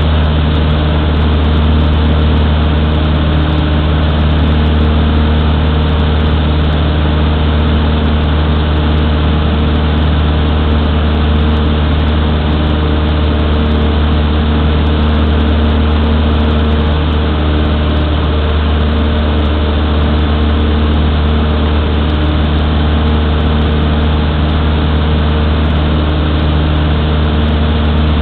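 Cessna 152's four-cylinder Lycoming engine and propeller in steady flight, a constant low drone heard inside the cabin.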